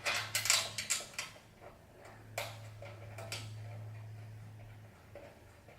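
Sharp metallic clicks and clinks of screws, nuts and steel rack parts being handled and fitted: a quick run of them in the first second or so, one more about two and a half seconds in, over a low steady hum.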